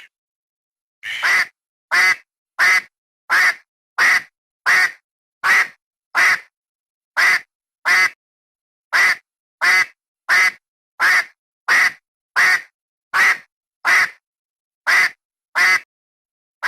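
A duck quacking in a long series of single, short quacks, about one every three-quarters of a second, with silence between them.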